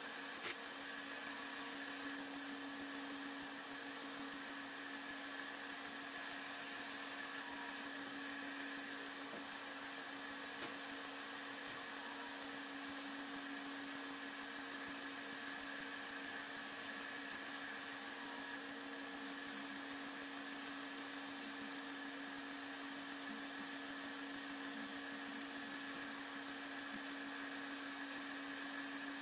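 A motor-driven machine running steadily, an even hum with a rushing-air hiss, and a single click about half a second in.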